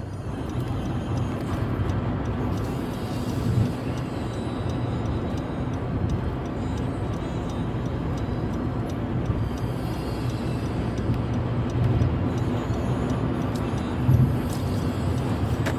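Steady engine and road noise of a moving car, heard inside the cabin, with a low hum. There is a brief louder bump about three and a half seconds in and another near the end.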